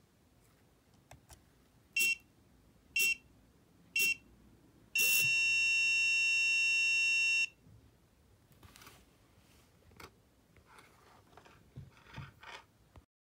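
Electronic buzzer of an IchigoJam microcomputer sounding a time-signal countdown: three short high beeps a second apart, then one long beep of about two and a half seconds. Faint small clicks and rustling follow.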